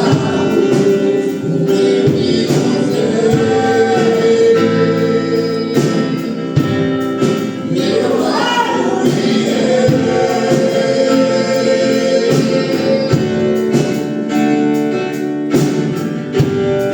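Congregational gospel worship music: several voices singing together over a band, with percussion strokes running through.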